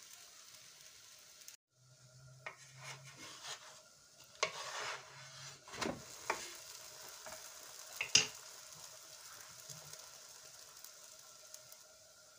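Katmer flatbread frying in oil on a flat pan with a faint, steady sizzle, while a wooden spatula scrapes and taps against the pan several times, loudest about eight seconds in.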